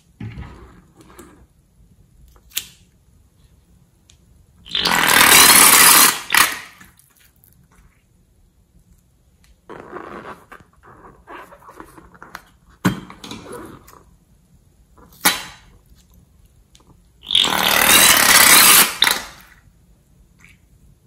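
Slime-filled latex balloons being squeezed out through their necks: twice the neck sputters loudly for a second or two as slime and air spurt out. A few sharp clicks and soft squelching come between the spurts.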